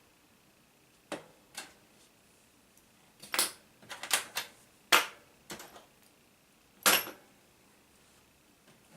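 Sharp clicks and taps of hard plastic and metal laptop parts being handled during disassembly, about a dozen in irregular clusters, the loudest near the middle and about two-thirds of the way in.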